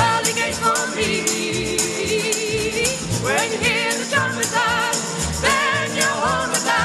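Folk-gospel group playing live: a woman's lead vocal with wide vibrato on long held notes, over strummed acoustic guitars, a plucked double bass and a tambourine.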